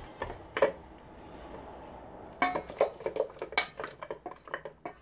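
Stainless-steel mixing bowl clinking and knocking as seasoning is worked into chicken in it. Two sharp knocks come within the first second, then a quieter stretch, then a quick run of clinks and knocks from about two and a half seconds in.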